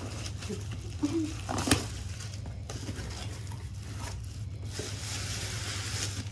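Plastic gift packaging and a cardboard carton being unwrapped by hand: crinkling plastic, rustling wrapping and cardboard flaps, with one sharp tap a little under two seconds in. A steady low hum runs underneath.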